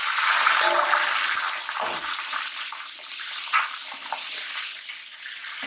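Raw chicken pieces frying in hot ghee: a loud sizzle that sets in just before and gradually eases as the pot cools, with a couple of soft knocks along the way.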